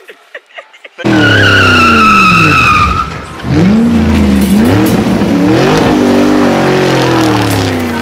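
Race car sound effect: a racing engine revving up and down with a high tyre squeal over its first two seconds, cutting in suddenly about a second in.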